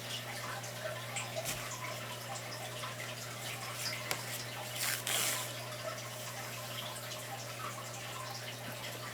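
Faint small ticks and rustles of a tapestry needle and yarn being worked through 7-mesh plastic canvas in a whip stitch, with a longer scrape about five seconds in. A steady low hum lies underneath.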